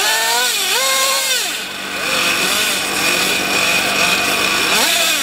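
Small glow-fuel engine of a nitro RC truck being revved up and back down, then running steadily at idle with a high-pitched whine, revved again briefly near the end.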